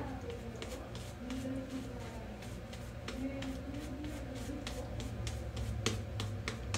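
Shaving brush working lather over a face: wet brushing with many small crackling clicks from the foam and bristles.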